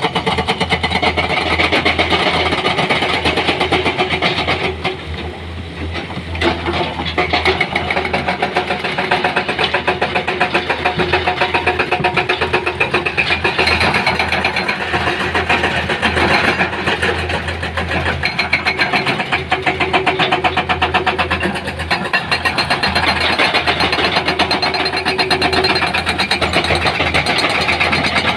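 Heavy machinery's diesel engine running loudly and steadily with a fast, even chugging pulse. It dips briefly about five seconds in.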